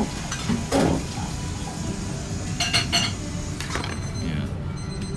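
Restaurant counter sounds: a few short clinks and knocks of glasses and dishes, some of them ringing briefly, over a steady room hum.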